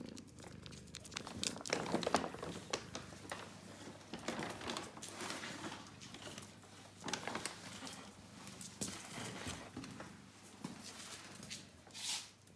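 Paper carrier bag rustling and crinkling in irregular bursts as a cat moves inside and around it.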